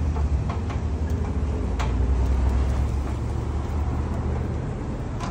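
A steady low rumble with a few light, scattered clicks as a screwdriver turns a hose clamp tight on a gas tank filler hose.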